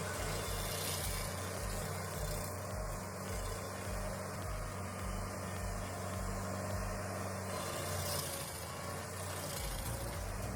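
A large machine engine running steadily, with a low, even pulsing beneath it.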